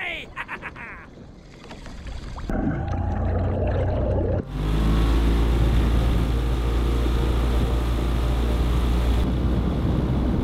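Honda outboard motor driving a small boat at speed, a loud steady engine drone under the rush of the wake and wind. A softer engine sound comes before it, and a short high chirping sound is heard at the very start.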